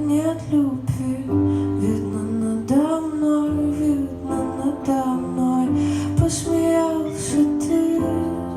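A woman singing a slow melody with vibrato, accompanied by a strummed acoustic guitar.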